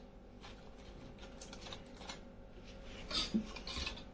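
Faint clinks, scrapes and rustles of hands handling fried pakoras on steel plates and a spoon against a small steel bowl of curd, with a few louder clinks about three seconds in.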